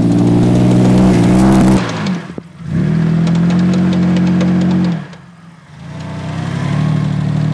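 Mitsubishi Pajero II's 3.5-litre V6 engine revving hard under load while crossing sand humps. It is held high for about two seconds, dips briefly, is held high again for about two seconds, drops away, then climbs once more near the end.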